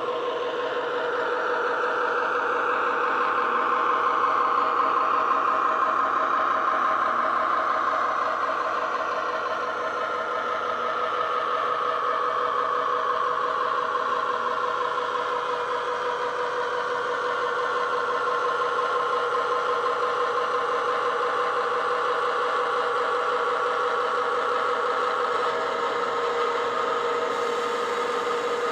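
Digital (DCC) sound decoder in a Bachmann OO-gauge Class 70 diesel model, playing a Class 70 engine sound through the model's small speakers as it runs. It is a steady diesel drone with a whine whose pitch slides slowly down over the first fifteen seconds or so and then levels off.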